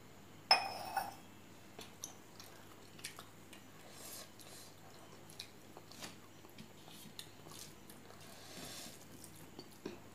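A metal drinking cup set down with a sharp clink that rings briefly, about half a second in. Then fingers mix rice and curry on a steel plate, with faint scattered clicks and soft squelches.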